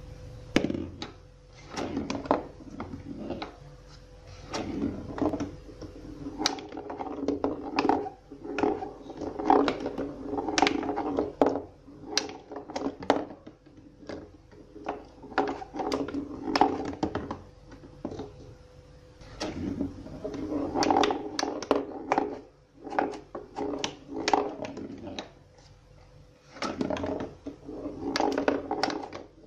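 Homemade cardboard pinball machine in play. A small ball rolls and rumbles across the cardboard playfield, among frequent sharp clacks and knocks from the flippers and from the ball striking the cardboard walls.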